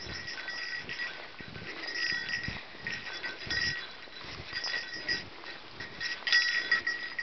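Footsteps crunching and wading through deep snow, with a high jingling ringing on and off, loudest near the end.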